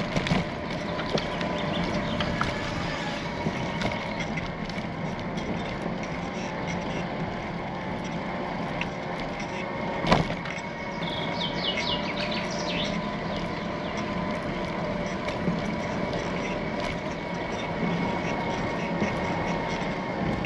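Bicycle riding noise: steady tyre and wind rumble with a constant thin whine, one sharp knock about ten seconds in, and a quick run of short high chirps just after.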